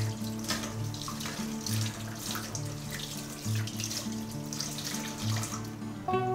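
Kitchen faucet running, with water splashing off a plate as it is washed by hand in the sink. Soft guitar music plays underneath.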